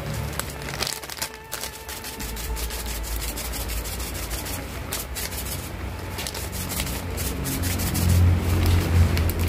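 A pan of taro-stem vegetable stew (sayur lompong) bubbling at a simmer, with many irregular small crackles and pops. A low rumble runs underneath and grows louder near the end.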